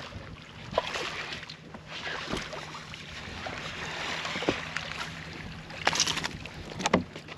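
A hooked largemouth bass splashing at the surface beside a boat, with the sharpest splash about six seconds in as it is lifted out of the water, over steady wind and water noise.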